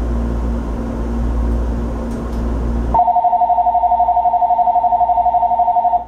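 Steady hum of a stopped electric train with its door open. About halfway in, an electronic bell starts trilling on two rapidly alternating tones for about three seconds: the warning that the doors are about to close.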